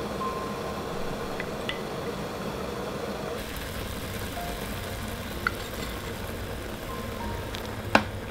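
Sweet and sour sauce boiling in a ceramic pot, a steady bubbling hiss that gets brighter about three seconds in, under soft background music. A sharp knock near the end as the wooden spoon stirring in the starch slurry strikes the pot.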